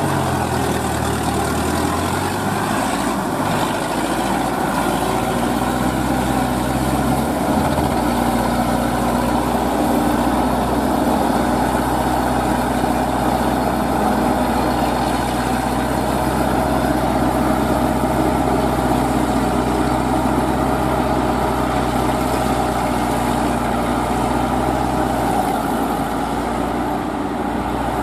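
Engine of a homemade crawler-track paddy tiller running steadily while it tills a flooded rice field. The engine note shifts during the first few seconds and changes again about 25 seconds in.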